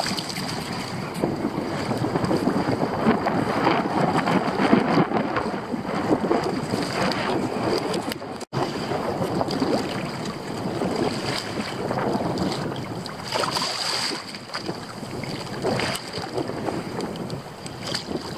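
Wind buffeting the microphone over choppy sea, with water splashing and slapping against a moving kayak's hull; the wind has just picked up. The sound cuts out for an instant about halfway through.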